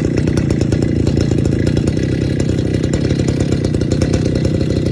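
Stihl petrol-powered handheld concrete cut-off saw, its small two-stroke engine running steadily at an even speed.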